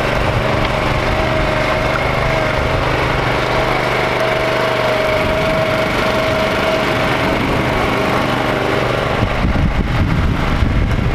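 Gravely Pro-QXT walk-behind tractor with its brush cutter attachment, engine running steadily under power as it is driven across grass. It holds a constant pitched hum, and the sound turns rougher and more uneven near the end.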